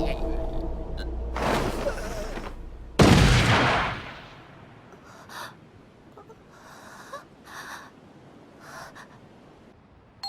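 A rush of noise, then a loud sudden hit about three seconds in that dies away over a second. After it come a few short gasping breaths.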